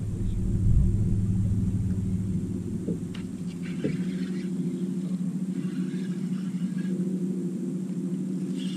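Bass boat's bow-mounted electric trolling motor running with a steady hum, over a low rumble that drops away about four seconds in.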